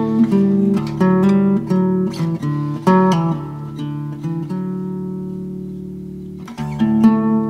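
Background music: acoustic guitar picking a melody, letting one chord ring out and fade about halfway through, then picking again near the end.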